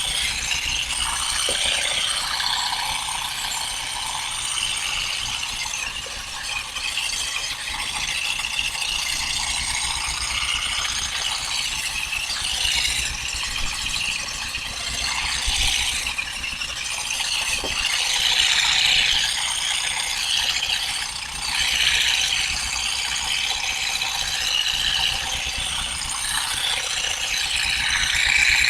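Olive harvesting: a continuous, irregular rattling of branches being combed or shaken and olives being stripped off them.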